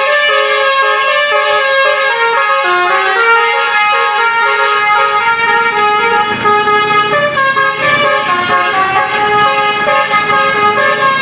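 Roof-mounted basuri-type telolet bus horn playing a long winding melody, its trumpets stepping quickly from note to note. A low rumble joins underneath about five seconds in.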